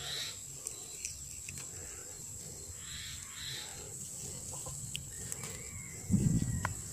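A hand picking leaves from low weeds: faint rustles and small snaps of leaves being plucked, under a steady high insect tone. About six seconds in comes a short, louder low rumble of handling noise.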